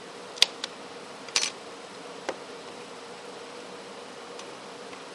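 Sharp clicks and snaps from a mobile phone's housing being worked apart by hand, a handful of them in the first half, the loudest about half a second in, over a steady faint hum.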